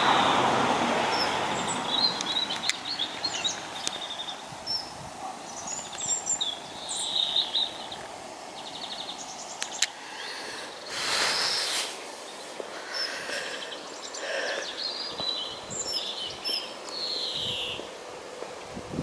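Small songbirds chirping and singing in short, high phrases, over a faint steady outdoor background. A broad rushing sound fades out over the first couple of seconds, and a second brief rush of noise comes about eleven seconds in.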